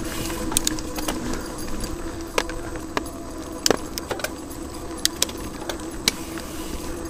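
Mountain bike rolling along a dirt trail: a steady rumble of tyres and wind, with irregular sharp metallic clicks and rattles from the bike as it goes over bumps.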